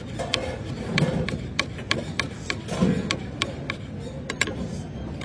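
A knife slicing button mushrooms on a plastic cutting board: quick, sharp taps of the blade striking the board, about three a second.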